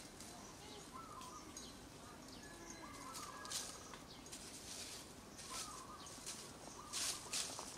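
Faint bird calls: a short whistled note repeated about four times, every couple of seconds, with brief high chirps in between.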